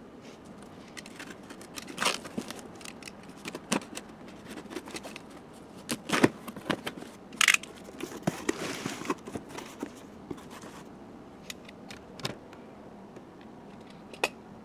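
A cardboard shipping box being opened by hand: packing tape slit and torn, flaps and packing paper scraping and rustling, with scattered knocks and clicks.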